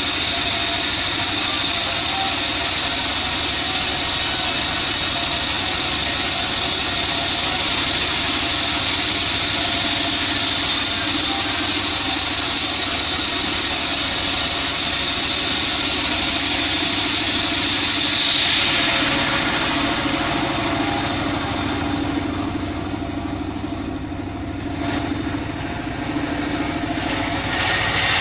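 Homemade bandsaw sawmill running, its blade cutting through a log with a steady high hiss. About two thirds of the way through, the cutting hiss fades away as the cut ends, and the mill's drive keeps running with a lower hum.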